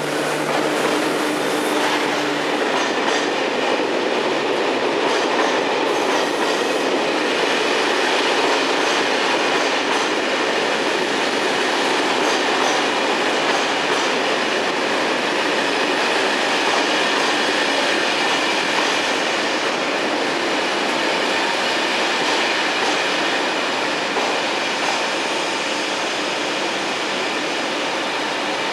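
SNCF BB 26000 electric locomotive passing at the start, a low hum that fades after about two seconds, then a long train of Corail coaches rolling by with steady wheel-on-rail noise.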